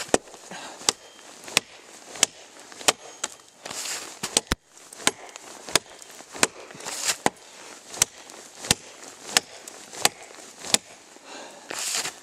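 Cold Steel Norse Hawk tomahawk chopping into a dead tree trunk: steady, sharp strikes of steel into wood, about one and a half a second.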